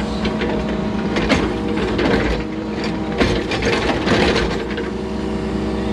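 Excavator's diesel engine running steadily, heard from inside the cab, with irregular scrapes and knocks as the bucket works the soil in the trench, the loudest about 1.3, 3 and 4 seconds in.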